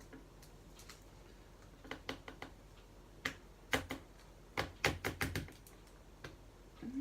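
Sharp clicks and taps of small plastic pieces knocking together as diamond painting drills and their little containers are handled and packed into a plastic storage case. The clicks come in small irregular clusters, with a quick run of them about five seconds in.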